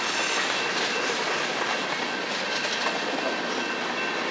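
Freight cars of a Norfolk Southern manifest train rolling past, their steel wheels running on the rails with a steady rolling noise.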